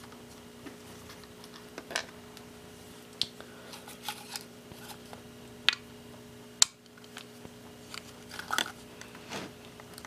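A screwdriver working the small screws out of a laptop hard drive's metal caddy: scattered short metallic clicks and scrapes, several a few seconds apart, over a steady low hum.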